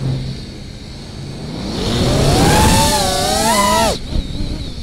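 FPV quadcopter's 2207 brushless motors and propellers, heard from the onboard camera. At the start the throttle is cut and mostly air rush is left. From about two seconds in the motor whine climbs back and wavers in pitch, then drops off sharply near the end as the throttle is chopped again.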